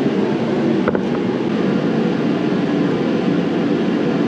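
A heater running with a steady, loud blowing hum, loud enough that the speaker has to raise his voice over it. A single small click sounds about a second in.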